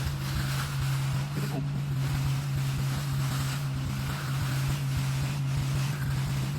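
Heavy diesel engine of the concrete-pouring equipment running steadily at a constant speed, a low, even hum.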